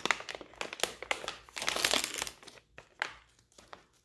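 Bark Thins plastic snack bag crinkling and rustling in irregular bursts as it is handled, loudest about two seconds in and dying down near the end.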